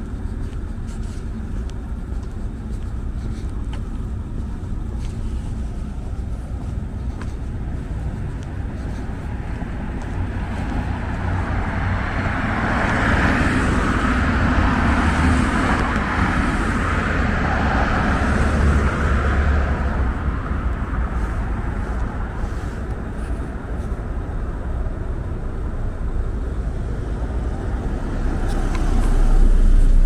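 Road traffic at a city intersection: a steady hum of traffic, with a car passing close by in the middle, its tyre noise swelling and fading. A deep rumble swells near the end.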